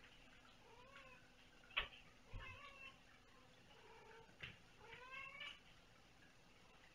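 Kittens meowing: about four short meows, the last one rising in pitch. A sharp knock about two seconds in is the loudest sound, and a softer one comes later.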